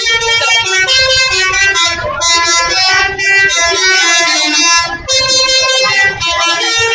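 Bus telolet horn, a multi-tone musical air horn, playing a tune of several notes in three long stretches with short breaks about two and five seconds in.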